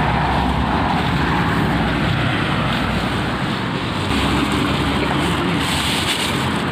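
A steady rushing noise with a low rumble underneath, holding at an even level.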